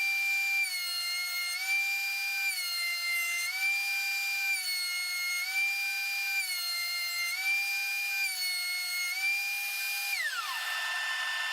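Benchtop thickness planer running with a high motor whine that steps down in pitch and recovers about every two seconds as the walnut board is fed through and exits on each pass. Near the end it is switched off and the whine falls away as the motor winds down.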